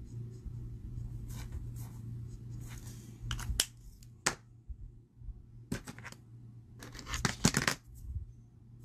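Alcohol markers being handled on a craft desk: faint scratching of a marker tip on cardstock, then a series of sharp clicks and rattles as marker caps come off and markers are picked up and set down, the loudest cluster about seven seconds in. A steady low hum runs underneath.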